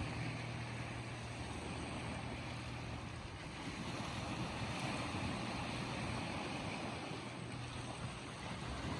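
Small waves washing and breaking on a sandy, pebbly shore, a steady surf noise that swells and eases gently. A steady low hum sits under it for the first few seconds, then fades.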